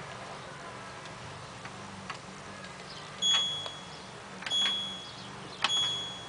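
LG F1222TD washing machine control panel giving a short high beep with a click as the program dial is turned a step, three times in the second half about a second apart, each beep marking the change to the next wash program. Under it a faint steady low hum.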